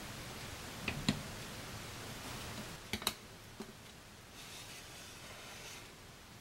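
A metal knife cutting a soft cheesecake clicks and taps against a ceramic plate: two sharp taps about a second in, another pair about three seconds in and a lighter one after. Near the end there is a faint soft scraping as a wedge is slid free and lifted.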